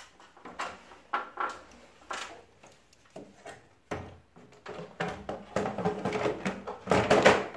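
Plastic front panel and casing of an LG Dual Inverter split air conditioner's indoor unit being handled and fitted back on: a string of separate clicks and knocks, then a denser plastic clatter and scraping from about five seconds in, loudest near the end.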